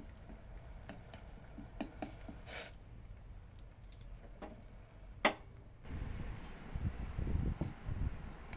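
Light clicks of wooden chopsticks against a stainless-steel pot while stirring, then one sharper click about five seconds in. After that comes a low, uneven rumble of handling noise.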